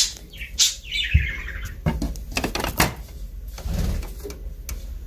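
Light clicks and knocks of a plastic toy stable and its door being handled, with a short falling chirp about a second in.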